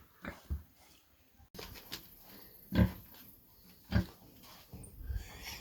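Pigs grunting: a handful of short grunts spaced a second or so apart, the loudest about three seconds in.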